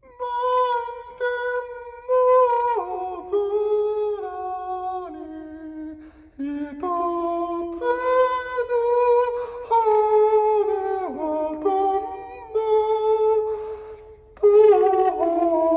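A man singing a slow melody alone into a handheld karaoke microphone, one voice holding long notes that step down and up in pitch, with short breaks about six seconds in and again near the end.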